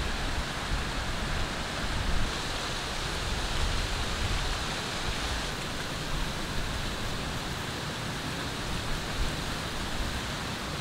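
A steady, even outdoor hiss with no distinct events.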